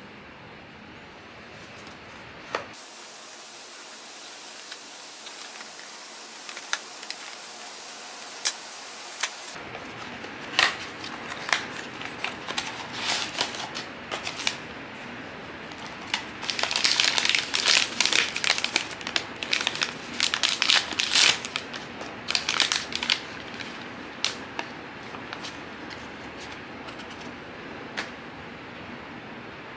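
Blind-box packaging being opened by hand: crinkling and tearing of paper and plastic wrapping, with scattered sharp clicks and taps. The crinkling is densest and loudest about sixteen to twenty-three seconds in.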